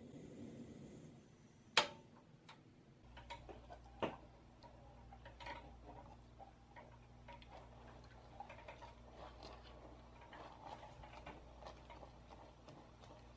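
Silicone spatula stirring caramel and cream in a stainless steel saucepan, making quick, irregular small ticks and scrapes against the pot. Two sharper knocks come about 2 and 4 seconds in.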